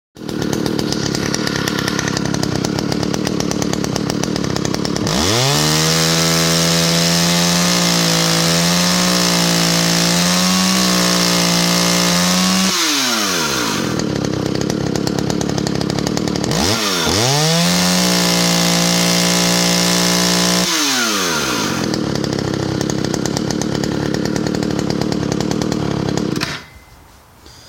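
Stihl 015AV two-stroke chainsaw idling, then revved to full throttle twice for several seconds each time, dropping back to idle in between. It is shut off near the end. The carburetor's high-speed setting is a little rich, as the owner believes.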